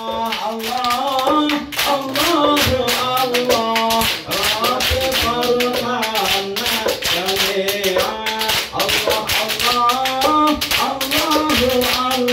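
Men singing a sholawat chant over fast, rhythmic hand-clapping and terbang frame drums, in ISHARI hadrah style.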